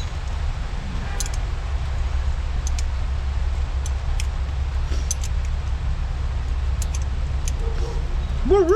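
Steady noise of heavy rain with scattered faint light clicks. Near the end a wavering hummed note begins and is the loudest sound.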